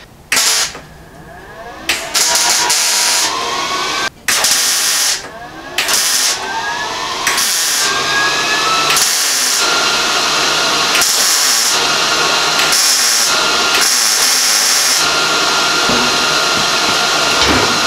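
Handheld power grinder grinding steel sheet metal, trimming the ends of a grille shell's chin pieces. The motor whine rises again and again as the disc is pressed on and eased off, and the grinding hiss swells and fades roughly every second, with a short break just after 4 seconds.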